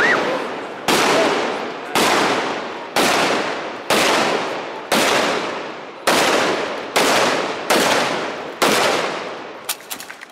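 A series of about ten loud, sharp bangs, roughly one a second, each ringing away over most of a second before the next.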